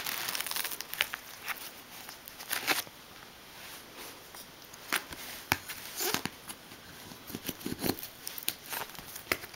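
Hands working at a stiff cardboard mailer sealed with tape: irregular clicks, short scrapes and rustles of cardboard and tape, with a few louder scrapes about halfway through and near the end.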